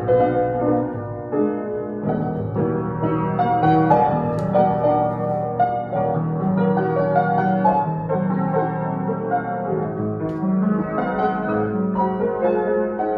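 Knabe grand piano playing a slow piece on its own, its keys driven by a Pianomation player system; overlapping held notes and chords at an even level.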